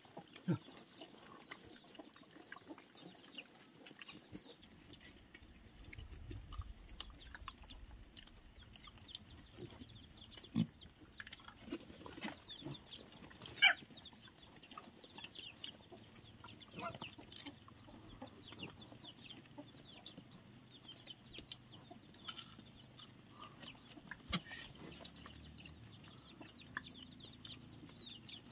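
Chickens clucking and chirping, with many quick little peeps throughout. A few sharp clicks stand out, the loudest about ten and thirteen seconds in.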